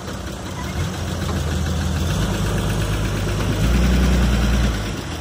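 Nissan dump truck's engine running, revving up a step about a second in and again, louder, about three and a half seconds in as the truck pulls away from its tipped load of soil.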